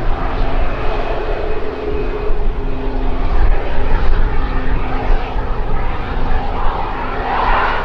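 A Boeing 737 MAX 8's CFM LEAP-1B jet engines running as the airliner rolls out on the runway after touchdown, spoilers raised. A steady jet rumble that swells slightly near the end.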